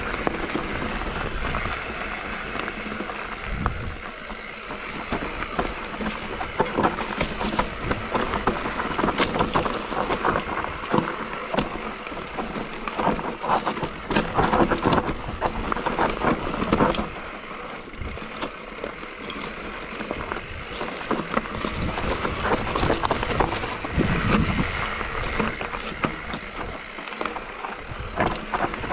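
Mountain bike riding fast down a rough trail: a steady rush of wind and tyre noise, with a constant patter of rattles and knocks from the bike over rocks and roots. The noise is louder in two stretches, in the middle and again near the end.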